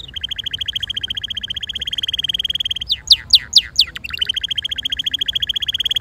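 Red canary singing: a rapid trill of fast-repeated notes, broken about halfway by four loud, quick sweeping whistled notes, after which the trill resumes.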